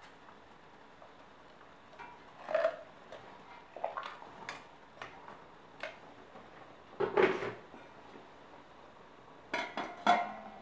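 Metal tongs and tin-cored bundles knocking and clinking against a stainless steel stockpot, a scattering of sharp knocks with short ringing, one of the loudest about seven seconds in. Near the end, two loud metal clanks as the lid is set on the pot.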